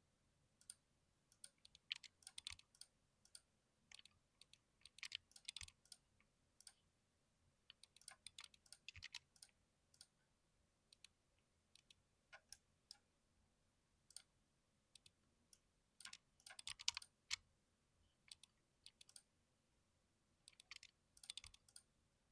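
Typing on a computer keyboard: bursts of quick key clicks with short pauses between them.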